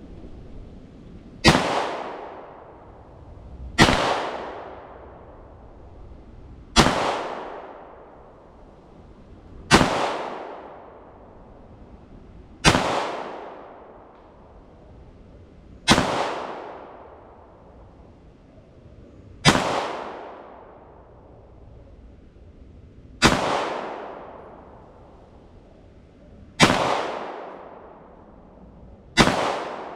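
Glock 19 9mm pistol firing ten single shots, about three seconds apart, each followed by an echo that dies away over a second or two.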